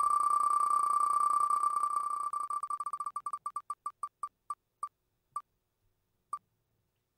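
Sound effect of a digital prize wheel spinning down: short, same-pitched beeping ticks, one per segment passing the pointer, rapid at first and slowing steadily until the last one about six seconds in, as the wheel comes to rest on a winner.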